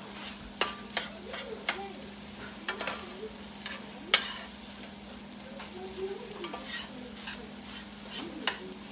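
Utensil stirring and scraping scrambled eggs and sausage in a nonstick skillet, over a soft sizzle of frying. There are scattered taps and scrapes against the pan, the sharpest about four seconds in.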